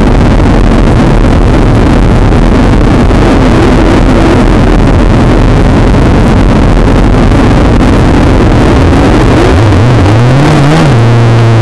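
Several motorcycle engines running in a waiting group, loud and rough throughout. About ten seconds in, one engine revs up and down as the bikes pull away, then settles to a steadier note.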